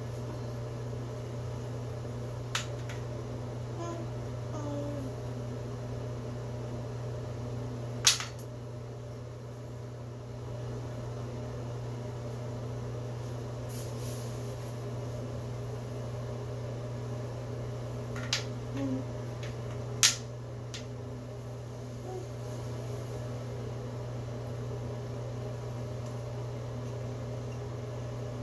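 A few sharp clicks of wooden alphabet puzzle pieces being knocked and set down on a tile floor and puzzle board, over a steady low hum in the room.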